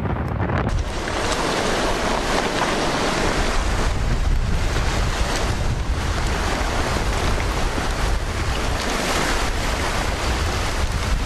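Storm footage: strong wind buffeting the microphone in low rumbles over a loud, steady rushing noise, which grows fuller and brighter less than a second in.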